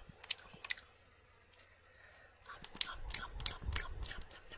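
Close-miked mouth sounds: wet tongue clicks and lip smacks. A few sharp clicks, a quieter pause after about a second, then from about three seconds in a denser run of clicks over a low muffled rumble.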